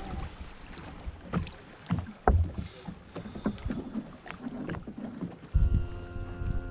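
Small waves lapping against a fiberglass bass boat's hull, with scattered light knocks and clunks on the boat. About five and a half seconds in, wind starts buffeting the microphone and a steady motor hum comes in.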